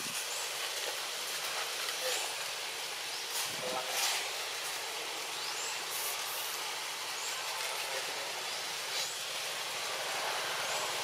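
Outdoor forest ambience: a steady high hiss, with short rising chirps recurring every second or so. A faint voice-like sound comes about three and a half seconds in.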